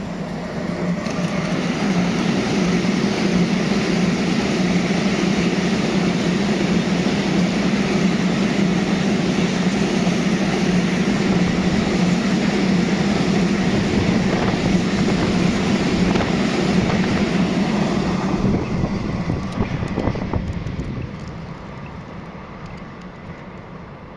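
Freight train of tank wagons, hauled by a Siemens Vectron locomotive, rolling past with a steady rumble and clatter of wheels on rail. It swells over the first couple of seconds and fades away from about eighteen seconds in as the train recedes.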